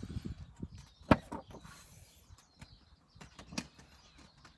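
A hand handling the pages of a picture book: soft paper taps and rustles, with one sharp click about a second in, the loudest sound.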